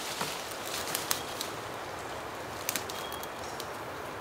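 Forest ambience: a steady background hiss with a few sharp clicks, and a short high bird note about three seconds in.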